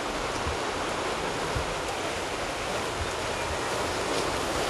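Ocean surf washing onto the shore: a steady rushing of waves.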